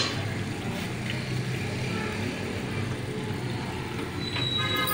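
A steady low rumble, with a short high-pitched tone coming in near the end.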